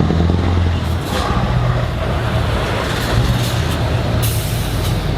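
Heavy truck's diesel engine running at low revs, with air-brake hisses: a short one about a second in and a longer one near the end.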